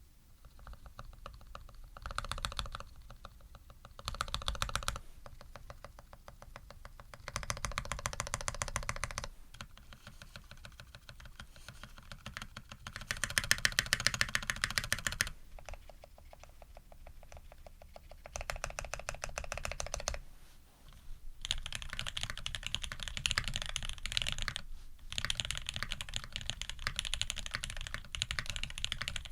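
Typing on a custom Tx65v2 mechanical keyboard with lubed SP-Star white switches, GMK Noel keycaps and a brass plate. Fast runs of keystrokes come in several louder bursts a few seconds long, with quieter typing between them, and a longer steady run near the end.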